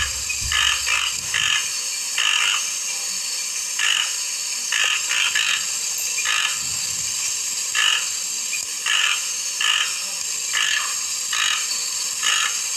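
Toco toucan giving a series of short, rough croaking calls, about one or two a second at uneven spacing.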